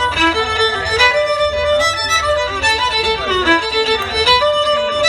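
Violin playing a quick run of short notes with occasional slides, with a low rumble underneath.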